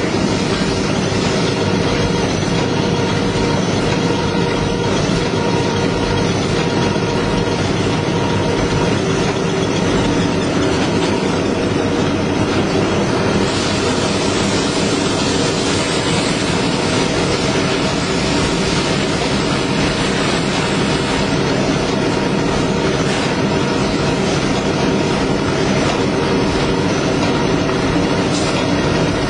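Toilet roll and kitchen towel converting line running: a steady machine din with several constant hums. A brighter hiss rises over it for several seconds around the middle.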